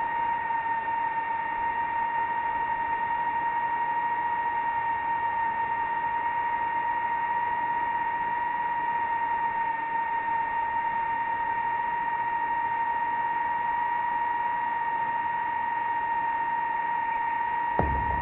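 DJI FPV drone's motors and propellers whining at one steady pitch under high throttle during a fast vertical climb.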